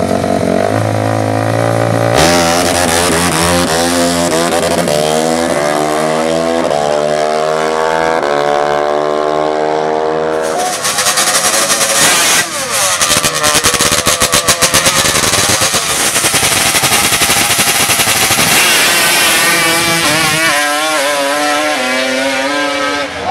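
High-revving drag-racing engines. The engine note climbs in pitch for several seconds, then turns into a loud, rough, rapid pulsing, and falls in pitch near the end.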